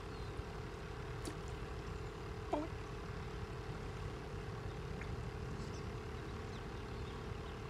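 Steady low outdoor background rumble with a faint constant hum, like a distant engine. A single short, falling sound comes about two and a half seconds in.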